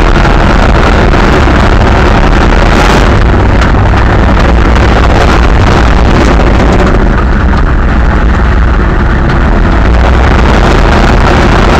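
Monster truck engine running hard, heard from inside the cab, very loud and overloading the microphone. The cab knocks and rattles over the ground, and the engine eases briefly about two-thirds of the way through.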